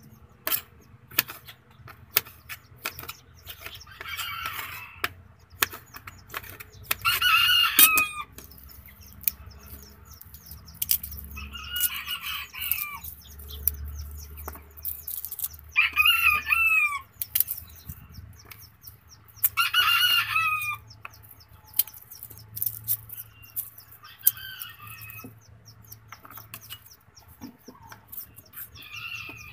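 Chickens calling, with a rooster crowing several times; the calls come about every three to four seconds. Between them are short, sharp taps of a knife on a cutting board.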